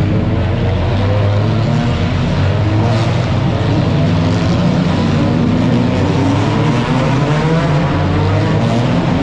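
Several touring race cars' engines running hard as they round a tight street-circuit corner and accelerate away one after another, the pitch rising and falling as each car passes.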